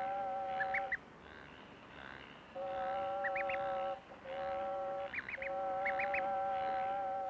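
Newly hatched duckling peeping: quick rising peeps in runs of three or four, about half a second in, around three seconds in, and twice more between five and six seconds. Behind them a steady two-note held tone sounds in stretches of one to three seconds, stopping and starting again.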